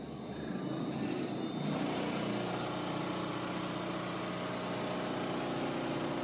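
Electric motors of a dynamometer test stand, driven by a repaired Allen-Bradley AC drive, speeding up as the load is brought on. Their pitch rises over the first second or so, then they settle into a steady, louder hum, running under load.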